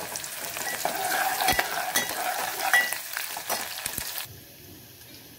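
Chopped onion, green chillies and curry leaves sizzling in hot oil in an aluminium pot while a steel spoon stirs them, with clicks, scrapes and short metallic rings of the spoon against the pot. The sizzling cuts off suddenly near the end.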